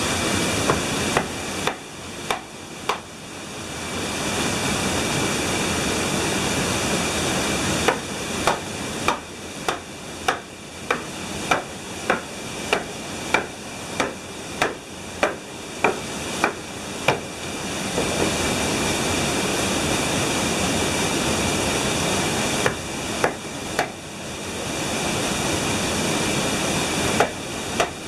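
A steel hammer drives wooden wedges into the saw cut of a pine log, striking in runs at about two blows a second, over a steady rushing noise.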